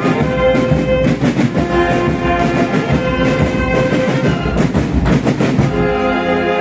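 Municipal brass band playing: brass instruments hold chords over steady drum beats.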